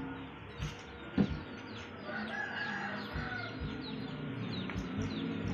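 Chickens in the background: a rooster crowing about two seconds in, amid a run of quick, repeated chirps. A single sharp knock about a second in.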